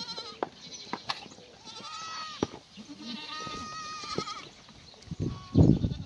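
Black goats bleating around a feed tub: two longer, high-pitched bleats, one about two seconds in and another about three and a half seconds in, with shorter calls and a few light clicks between. Near the end there is a brief, loud, low rumble.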